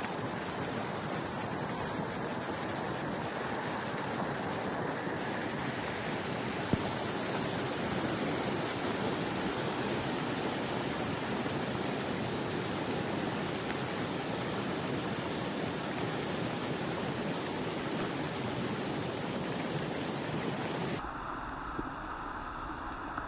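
Swollen Beas river in flood, fast-moving water giving a steady, even rush. Near the end the sound abruptly turns duller and thinner.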